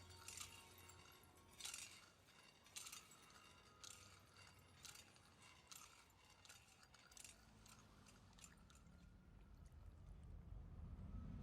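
Faint high clinking strikes, each ringing briefly, about one a second, with a low rumble building near the end.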